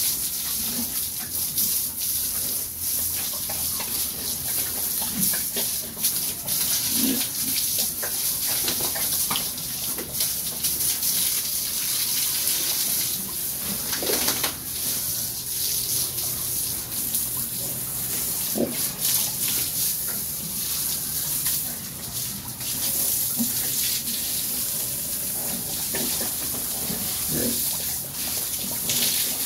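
Water from a hose spraying steadily onto pigs and the wet concrete floor of their pen, with pigs grunting briefly now and then.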